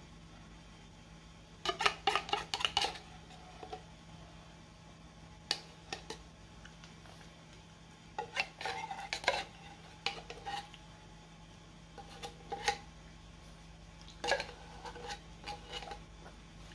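A metal spoon scraping and clinking against the inside of a tin can, in several short runs of clicks with pauses between them.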